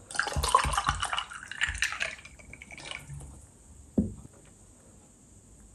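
Ice water sipped from a glass: water and ice moving in the glass, with small gulps and clinks, for about three seconds. About four seconds in, a single knock on the wooden board.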